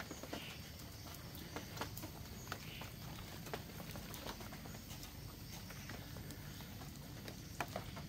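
Faint outdoor background with scattered, irregular small ticks and taps, a few each second.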